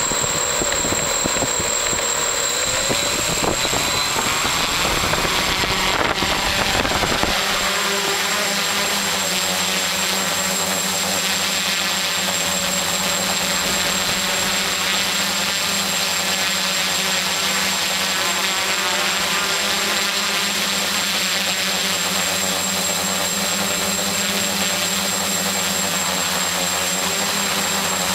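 Homebuilt AeroQuad quadcopter's electric motors and propellers, heard close from the craft itself: they spin up with rising pitches and a rough rush as it lifts off the grass. About seven seconds in the rush drops away, leaving a steady hum of several pitches as it flies.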